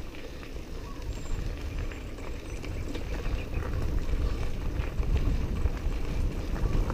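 Bicycle ridden over a gravel dirt road: a steady low rumble of tyres on loose stones and wind on the microphone, with faint scattered clicks.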